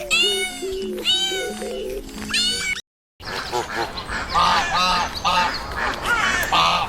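A cat meowing three times, each a long arching call, over a simple background melody; after a brief cut to silence, ducks quacking in many short, rapid calls with the music continuing.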